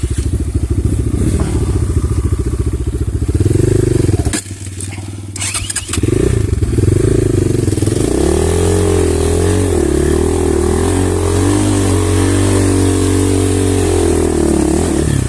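Kovi pit bike's single-cylinder engine running and being revved as the rider tries to get the bike moving while stuck. The engine sound drops away about four seconds in, with a few sharp knocks. About six seconds in it picks up again, its pitch wavering up and down with repeated blips of the throttle.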